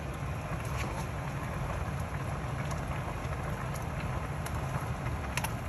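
Soup simmering in a metal pot on a lit gas burner: a steady low rumble and hiss. A few light clicks come from the metal ladle in the pot.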